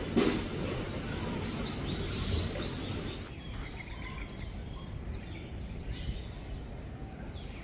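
Birds calling outdoors: many short, high chirps, each falling in pitch, repeated over a steady background noise. A knock comes near the start, and a low rumble stops about three seconds in.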